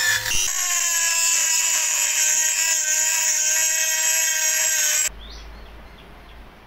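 Cordless drill spinning an abrasive grinding point inside the rusty steel socket of a garden spade, grinding off rust with a steady high whine. The whine stops abruptly about five seconds in, leaving quieter background with a couple of short bird chirps.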